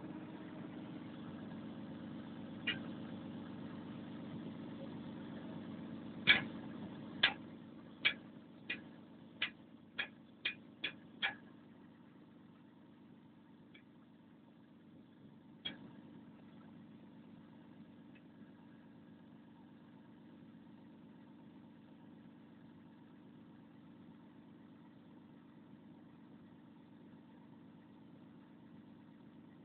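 Volvo 360's diesel engine running at a steady idle. About six seconds in comes a run of nine sharp knocks, spaced ever closer together, after which the engine sounds quieter.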